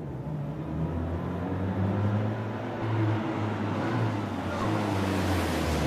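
An old sedan's engine running steadily as the car drives along a dirt road, with a hiss of tyre and road noise growing near the end.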